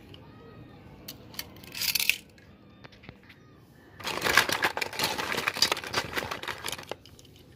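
Plastic toy cars and trucks clattering against each other as a hand rummages through a heap of them: a short burst about two seconds in, then a longer run of jumbled clicks and knocks from about four to seven seconds.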